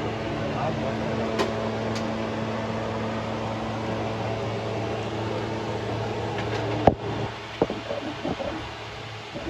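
A steady mechanical hum, with a sharp click about seven seconds in and a few knocks after it, as the hum drops lower.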